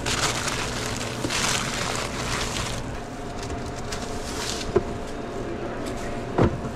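Rustling and handling noises as an overfilled sandwich is pressed together and worked on, over a steady background hum. A sharp click about five seconds in and a thump near the end.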